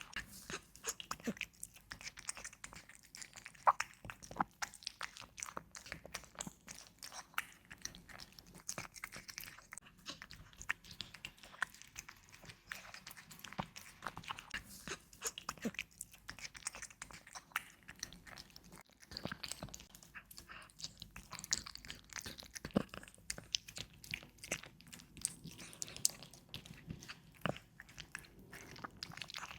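A cat chewing and biting its food: an irregular run of small crunching clicks.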